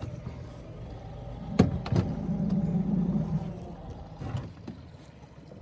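A boat's outboard motor running low and steady, growing louder for a second or so in the middle, with a sharp knock on the hull about a second and a half in.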